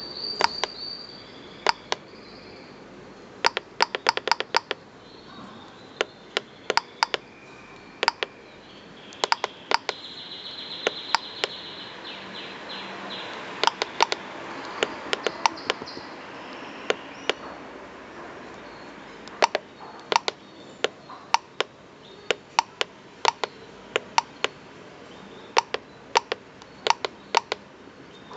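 Sharp clicks of the pushbuttons on a pulse-induction metal detector's control box, pressed repeatedly, often two to four times in quick succession, as the menu settings are stepped through.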